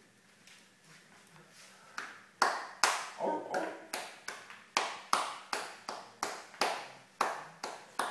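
A person clapping their hands in a steady rhythm of about two to three claps a second, starting about two and a half seconds in.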